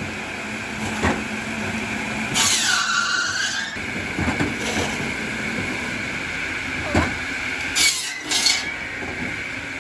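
A motorised log-cutting saw runs steadily while wooden poles are fed into it. About two and a half seconds in it cuts through a pole with a harsh rasp, its whine dropping in pitch under the load, and short cutting rasps come again around eight seconds. Wooden knocks of poles being handled sound about a second in and near seven seconds.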